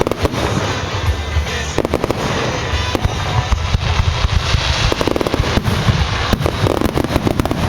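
Fireworks display: a rapid, continuous barrage of bangs and crackling reports.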